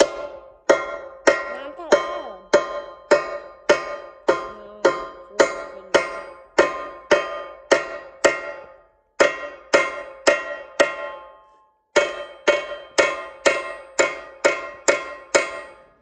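Hammer pounding the rivets of a replacement sprocket nose into a chainsaw guide bar on a steel anvil, setting the rivets. The sharp ringing metal strikes come about two a second, with two short breaks.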